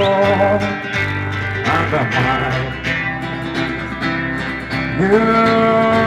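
A live band playing a pop-rock song, with electric bass and guitar under long held sung notes; about five seconds in, a new note slides up and is held.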